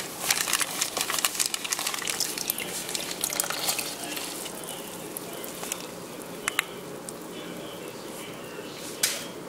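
Water splashing and dripping in a plastic tub as a coral frag on its plug is set into it, with a busy patter of small splashes and clicks for about four seconds. It then settles, with a couple of light clicks in the middle and a sharp click near the end.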